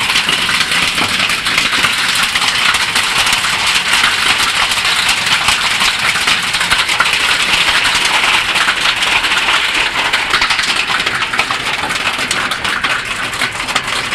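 Heavy hail mixed with rain pelting down: a loud, dense, steady clatter of hailstones striking the ground, roofs and other surfaces.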